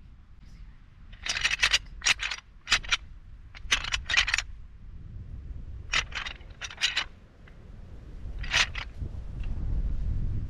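Several short clusters of sharp clicks and scrapes, like gear being handled, over a low wind rumble that grows louder near the end.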